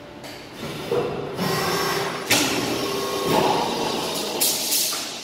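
Brass cold chamber die casting machines running: a steady mechanical hum with knocks and several sudden bursts of hiss.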